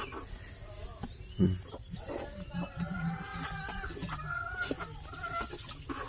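Chickens clucking, with a quick run of high falling chirps between about one and two and a half seconds in, and a single short low thump about a second and a half in.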